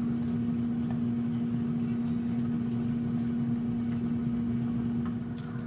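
Air fryer's fan running with a steady hum and a constant low tone while it cooks.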